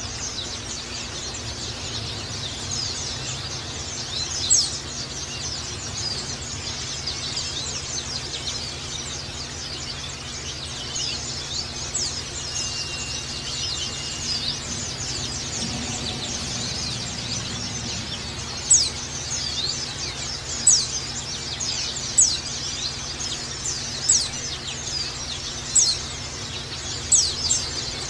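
White-eyes (pleci) singing a dense, rapid chatter of thin high chirps, the 'ngecal' song. Sharper, louder chirps come every second or two in the last third.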